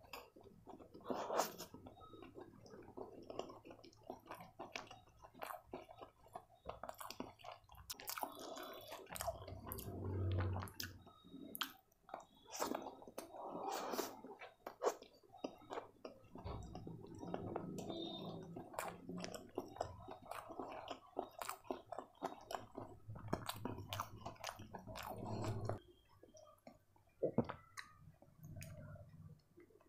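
Close-miked chewing of a mouthful of fried rice eaten by hand: wet mouth noises with many sharp little clicks, thinning out near the end.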